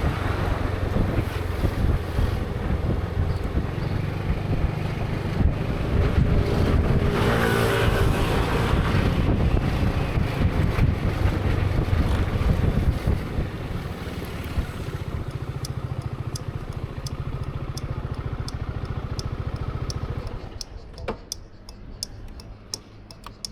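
Zontes 350E scooter's single-cylinder engine running at low riding speed with some wind on the microphone, settling to a steady idle and then switched off about 20 seconds in. From about 15 seconds in, an even ticking at about two ticks a second continues after the engine stops.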